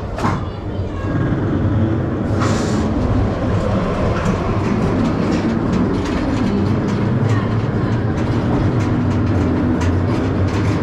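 Roller coaster train rolling along its steel track: a steady rumble of the wheels with scattered clicks and rattles, and a short hiss about two and a half seconds in.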